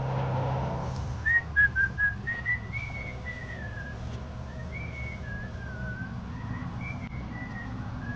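A person whistling a tune: a quick run of short, loud notes about a second in, then a slower melody of held and sliding notes. A vehicle passes at the start, and a low hum runs underneath.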